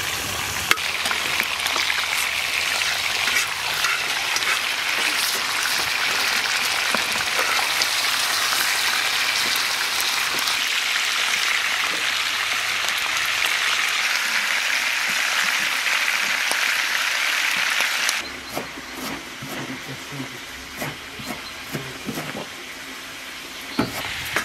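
Lamb shanks sizzling steadily as they sear in hot oil in a large metal pan. About 18 seconds in the sizzling cuts off, giving way to quieter, scattered knocks of a knife chopping fresh dill on a wooden board.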